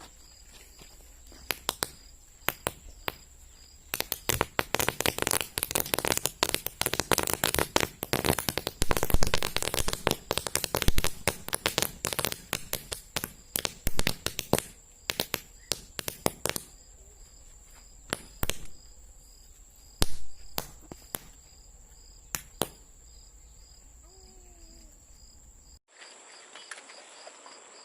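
A chain of toy roll caps popping as they burn: a few scattered pops, then a rapid crackle of many pops for about twelve seconds, thinning out to occasional single pops.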